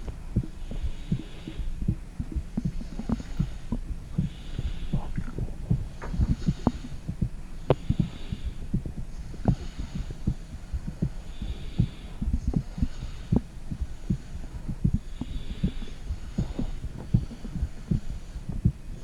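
Heartbeat and body sounds picked up by a microphone held against the stomach: a stream of low, uneven thumps and gurgles, with a soft hiss that swells and fades every couple of seconds.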